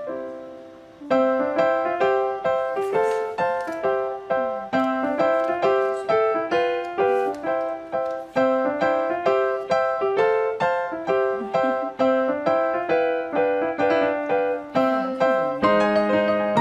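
Background piano music: a light melody of single struck notes at a steady pace, breaking off briefly about a second in, with lower notes joining near the end.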